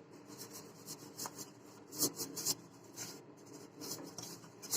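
Faint, irregular rubbing strokes as oil is spread around the inside of a cake tin to grease it.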